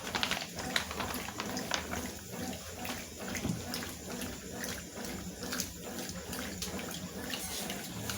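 Water splashing and sloshing inside a Consul washing machine's tub, with a regular beat about twice a second over a low steady hum.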